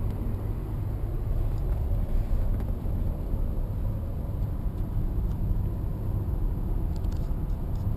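Steady low road and tyre rumble inside the cabin of a moving Nissan Leaf stretch limousine, with no engine note from the electric drive. A few faint clicks near the end.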